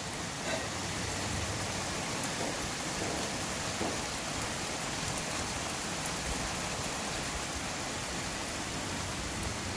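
Heavy rain pouring down in a storm: a steady downpour.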